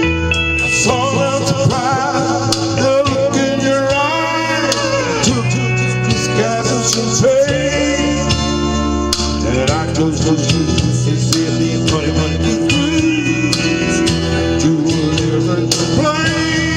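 Music: a man singing with a backing band of guitar and bass.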